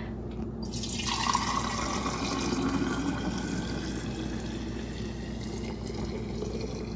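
Bone broth pouring from a stainless steel pot through a wide-mouth funnel into a large glass mason jar: a steady stream of liquid filling the jar, starting about half a second in.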